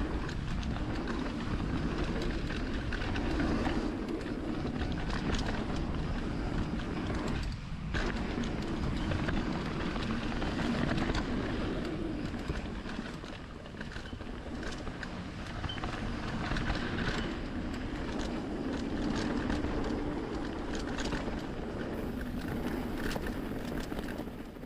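Mountain bike riding down a bike-park trail: a steady low rumble from the tyres and airflow over the camera, with frequent rattles and clacks as the bike goes over bumps.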